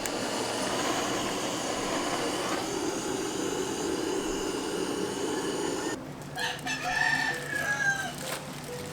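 A steady rushing noise, then about six seconds in a rooster crows once, a long call with a falling glide near the end.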